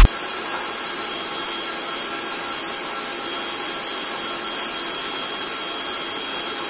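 Sujata mixer-grinder running steadily at speed, blending a liquid peanut-candy shake, with a thin high whine over the motor noise.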